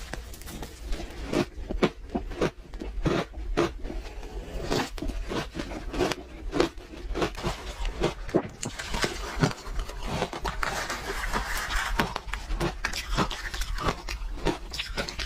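Close-miked crunching of ice being bitten and chewed, a rapid irregular run of sharp cracks and crunches, with a denser, hissier stretch of grinding in the middle.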